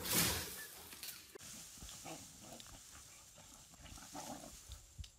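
A few faint, short animal calls, with a longer one about four seconds in.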